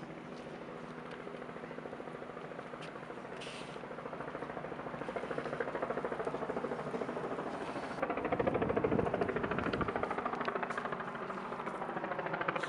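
Helicopter passing overhead, its rotor pulsing rapidly and growing louder, loudest about eight to ten seconds in.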